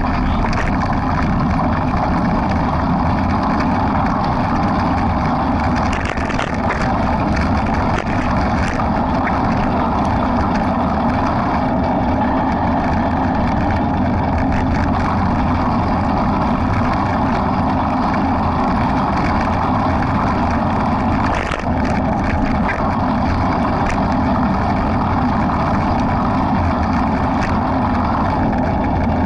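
Steady wind rush over the microphone of a camera carried by a running runner.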